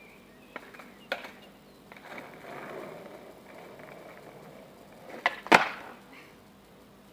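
Skateboard on asphalt: a couple of knocks of the board, then the wheels rolling for a few seconds, then two sharp clacks about a third of a second apart, the second the loudest, as the tail pops and the board lands on a moving pop shove-it.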